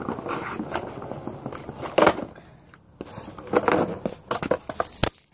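Kids' scooter wheels rolling and clattering on brick paving during tricks such as 90s and bunny hops, in irregular scraping bursts, with a sharp knock near the end.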